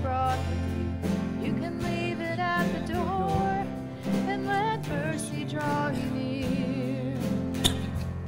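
A worship song sung by a solo voice with piano accompaniment, the melody held in long, wavering notes over steady piano chords.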